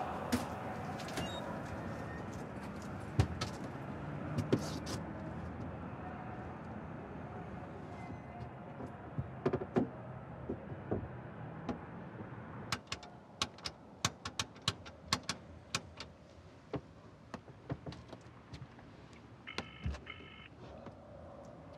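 Payphone in a red telephone box being handled: a run of irregular sharp clicks and taps from the handset and box over faint street noise, then, near the end, a tone in two quick pulses in the earpiece, in the rhythm of a British ringing tone.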